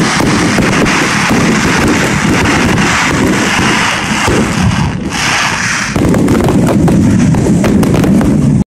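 A fireworks display firing a continuous barrage: dense, overlapping sharp bangs and crackling with no pause between them.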